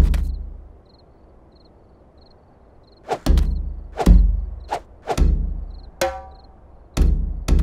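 Drum strikes: one deep booming hit, a pause with faint cricket chirps, then from about three seconds in a slow beat of deep drum hits mixed with higher, ringing pitched wooden tones.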